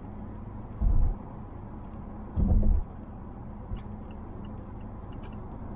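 Cabin of a 2020 Mazda Atenza (Mazda6) 2.5L cruising on a highway: steady road and tyre rumble. Two heavy low thumps come about a second and a half apart, and a few faint light ticks follow near the end.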